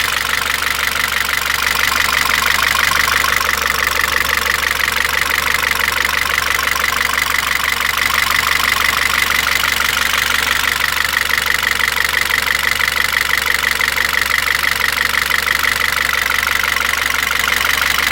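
Citroën C4 2.0 engine idling steadily, with a fast, even ticking riding on the running.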